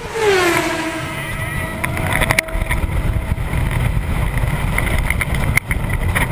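Roller coaster train running fast, heard from the front seat: a steady low rumble of the train on the track and wind rushing past the camera. A loud wail falls in pitch over the first second and a half, and a couple of sharp knocks come from the train.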